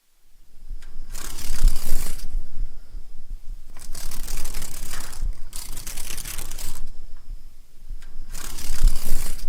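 Dragonfly wings rustling and whirring close to the microphone, in four loud bursts of about a second each, with a low crackle between them.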